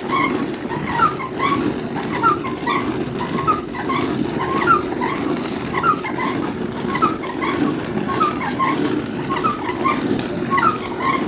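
Traditional hand-turned rice husking mill running: the clay upper drum grinding round on the lower, giving a steady rumble while paddy is husked. Short high chirping sounds come over it about twice a second.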